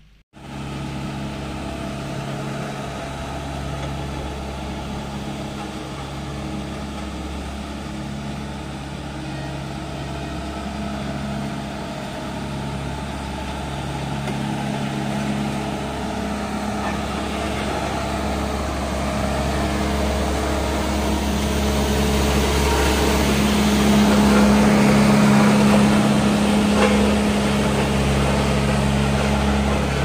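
Diesel engine of a JCB tandem (double-drum) road roller running steadily as the roller drives over the road base. It grows louder as the roller comes closer, loudest about three-quarters of the way through.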